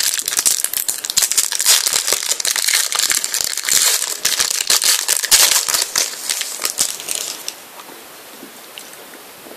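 A trading-card pack's wrapper crinkling and crackling as it is torn open and handled, busy and dense for about seven seconds, then dying down to faint handling near the end.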